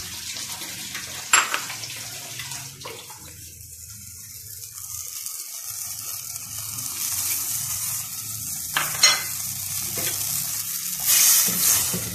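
Water poured from a glass bowl into a clay pot of mutton and yogurt cooking on the stove, with a steady hiss and sizzle and two sharp clinks of glass. Near the end a wooden spoon stirs the pot and the sound grows louder.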